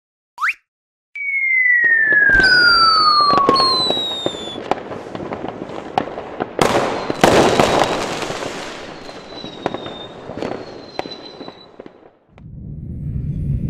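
Fireworks sound effects: a short rising whistle, then a long falling whistle with fainter higher ones over a crackling hiss, followed by scattered sharp cracks and pops that fade away near the end.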